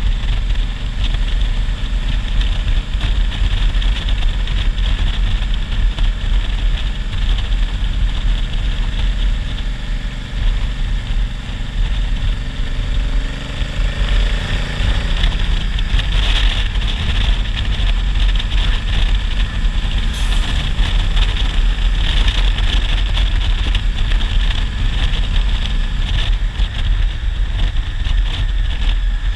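Honda Africa Twin's parallel-twin engine running while riding, under steady loud wind rush on the microphone. About halfway through, a lorry passes in the other direction and a pitched engine note slides down as it goes by.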